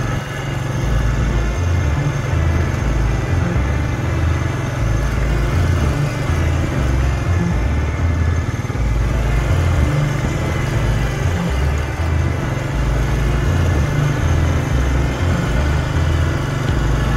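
A vehicle driving along a rough dirt road: engine and road rumble, steady and loud, with the low rumble shifting unevenly over the bumps.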